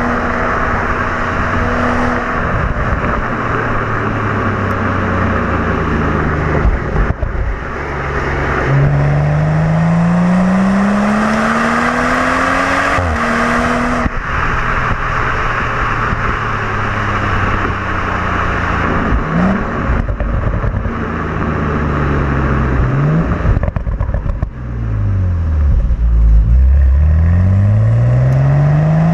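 BMW M235i's turbocharged inline-six engine and stock exhaust under way, the engine note rising as the car accelerates and falling back as it eases off and the automatic shifts, several times over. The longest pull is about nine seconds in, and another climbs steadily near the end.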